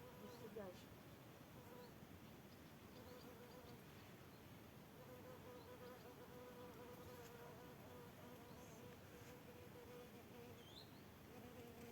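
A flying insect buzzing close by, a faint steady hum that wavers slightly in pitch.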